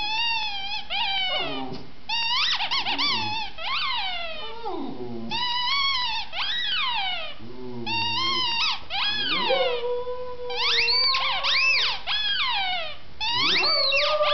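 A rubber squeaky toy squeezed over and over in short runs of squeaks that sweep up and down in pitch. Past the middle, a Kyi-Leo dog (Maltese–Lhasa Apso cross) joins in with one long howl that rises slowly and is held while the squeaking goes on.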